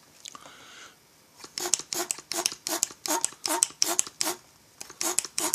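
Hand-held pressure/vacuum pump gun squeezed over and over to pressurize a chainsaw fuel tank for a leak test, a steady run of quick strokes several a second starting about a second and a half in. A faint short hiss comes before the pumping starts.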